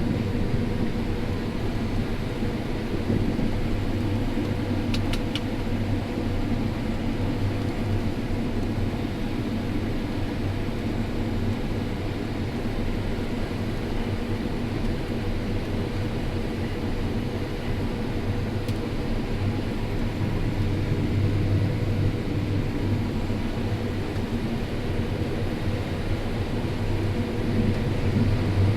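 John Deere S670 combine harvester running steadily while harvesting corn: a constant low engine and machinery drone with a faint steady hum.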